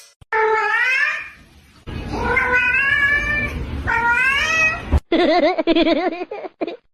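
A cat meowing: three long, drawn-out meows, the middle one the longest. About five seconds in, a different recording cuts in with a lower call that wavers rapidly up and down.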